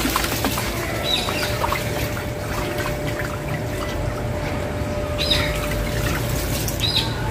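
Dirty aquarium water pouring steadily out of a tipped plastic tub and splashing onto a wet concrete floor. A few short bird chirps sound in the background.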